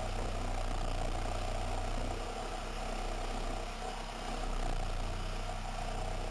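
A steady low mechanical hum, even throughout, like a motor running.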